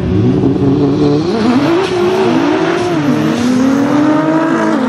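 Two Nissan GT-Rs' twin-turbo V6 engines at full throttle in a drag-race launch, the engine note climbing in pitch and falling back at each upshift, several times over.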